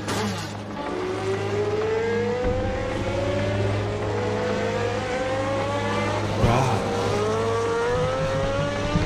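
Race car engine accelerating through the gears. Its pitch rises steadily for several seconds, drops at a gear change about six and a half seconds in, and then rises again.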